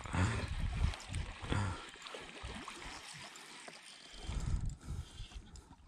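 Water splashing and gurgling as a hooked largemouth bass thrashes at the surface, with wind rumbling irregularly on the microphone.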